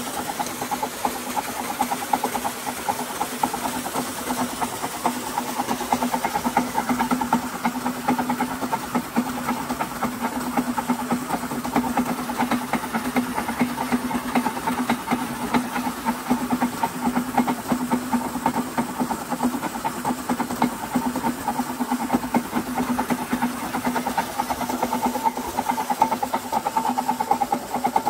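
Belt-driven motor, flywheel and alternator rig running together with a surface water pump: a steady machine hum with a fast fine rattle, mixed with the rush of water gushing from the pump's outlet.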